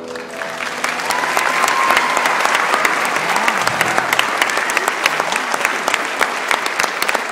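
Audience applauding in a school auditorium, swelling over the first second into steady clapping with sharp individual claps close by.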